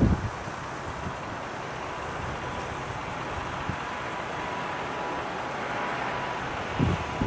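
Train being shunted slowly past, its wheels rumbling steadily on the rails and growing gradually louder, with a faint steady high tone through the middle. Wind buffets the microphone at the start and again near the end.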